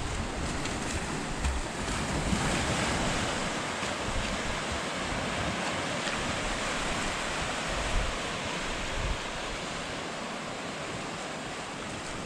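Small surf breaking and washing up over a flat sandy beach, with wind buffeting the microphone.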